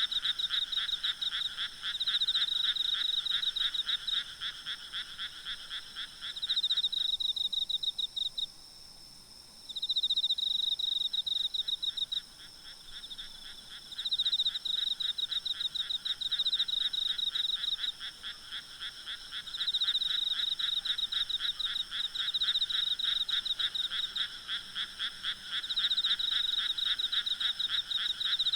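A chorus of frogs calling at night in rapid, pulsed croaking trills, in overlapping bouts a few seconds long with a brief lull about a third of the way in. Insects keep up a faint, steady high drone underneath.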